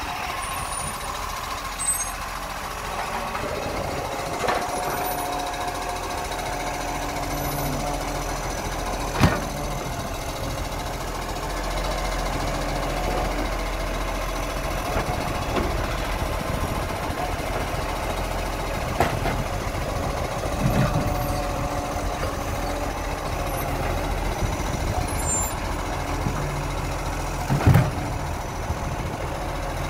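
Side-loader garbage truck running while its automated arm lifts and empties a wheelie bin. Several sharp clunks from the arm and bin, the loudest about nine seconds in and near the end.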